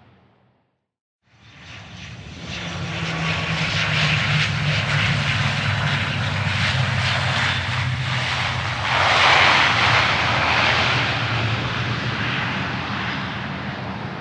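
A second of silence, then an airplane coming in to land fades in: a steady low engine hum under a rushing noise that builds, is loudest about nine seconds in, and slowly fades away.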